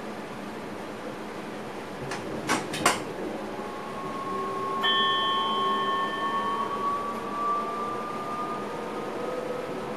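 Inside an electric train's driver's cab: a steady hum, a quick cluster of sharp clicks a couple of seconds in, then a high electric whine that comes in and slowly rises in pitch as the traction motors draw power and the train gathers speed.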